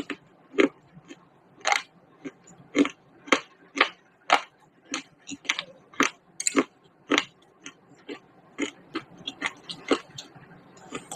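Close-up crunching and biting of baked clay pot pieces, with sharp crunches about twice a second.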